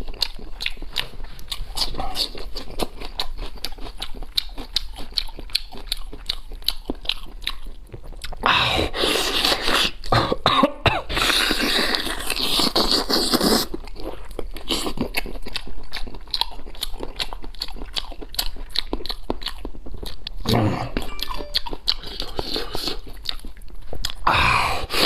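Close-miked chewing and lip-smacking on spicy braised goat leg: a run of wet clicks and smacks. About a third of the way in there is a louder noisy stretch of coughing lasting about five seconds, with a shorter burst near the end.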